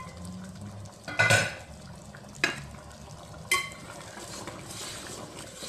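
Metal ladle stirring thick curry in a large metal pot, clinking and knocking against the pot several times with a brief metallic ring, the loudest about a second in. After the clinks comes a soft swishing of the gravy being stirred.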